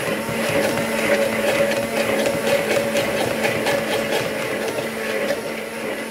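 Hand blender motor running steadily as it purées red peppers into a thick sauce in its tall beaker. It is a continuous motor hum with irregular churning clicks from the pulp.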